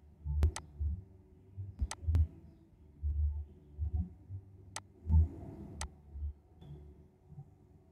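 Computer mouse clicking, about six separate clicks in the first six seconds, with dull low thuds of the mouse or hand on the desk.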